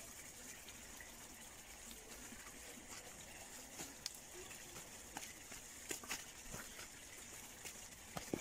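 Faint rustling of stiff artichoke leaves and hands working the soil at the plant's base, with a scatter of short crackles and clicks in the second half, the sharpest near the end.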